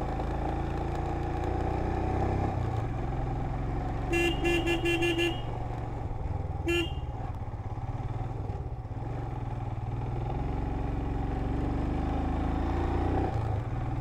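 Royal Enfield Himalayan's single-cylinder engine running steadily under riding, with a quick run of about six short horn beeps about four seconds in and one more beep a moment later.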